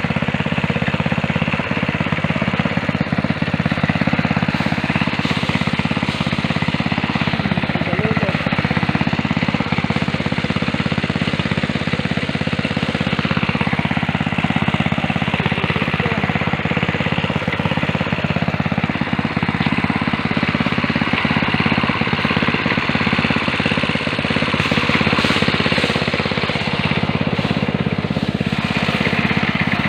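A small engine running steadily at a constant speed with a rapid, rattling pulse, typical of engine-driven farm machinery at work.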